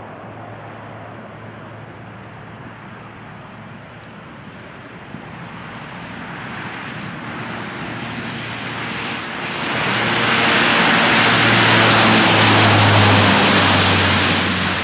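Lockheed C-130J Super Hercules's four turboprop engines and propellers running during a ground roll on a dirt strip, a steady low hum under a rush of noise. It grows louder from about a third of the way in and is loudest near the end as the aircraft passes close.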